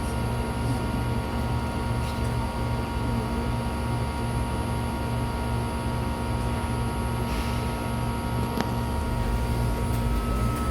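Cabin noise of a MAZ-303E23 battery-electric bus: a steady low rumble with several thin, steady electric whine tones, a few faint clicks and a short hiss about seven seconds in.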